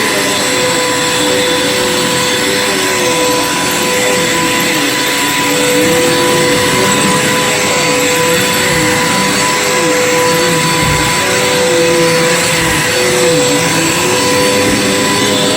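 Bissell PowerForce bagged upright vacuum cleaner running, a loud steady motor whine, with a lower tone that wavers up and down every second or so.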